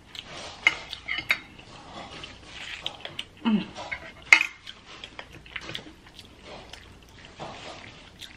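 Metal fork clinking and scraping against a glass bowl as ramen noodles are stirred and twirled, with sharp clicks scattered throughout, the loudest a little after four seconds in.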